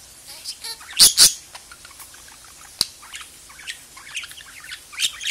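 Budgerigar chattering: a run of short chirps and warbling notes, with two loud, sharp calls about a second in and another loud call near the end.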